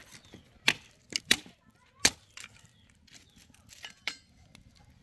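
Cooking utensils and pots clinking and knocking against each other: about half a dozen sharp, irregular strikes.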